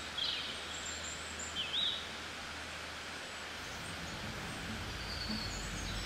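Faint outdoor ambience: a steady hiss with a few short, high bird chirps, two of them within the first two seconds.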